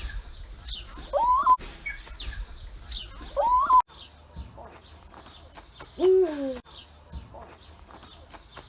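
European eagle owl calling: two short calls that rise and level off, about a second and three and a half seconds in, then one deep hoot falling in pitch about six seconds in. Faint chirps of small birds sound behind the calls.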